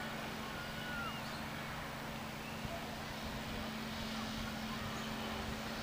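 Steady distant outdoor background noise: a constant low drone with a steady hum under it, and a couple of faint high chirps about a second in.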